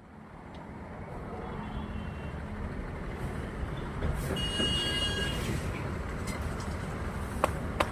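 Heavy vehicle engine running with a steady low rumble that slowly grows louder as the vehicle moves forward. A faint high tone sounds briefly around the middle, and there are two sharp clicks near the end.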